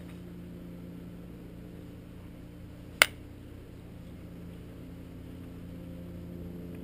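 One sharp click about three seconds in as the motorcycle's oil filter cover parts are handled, over a steady low hum.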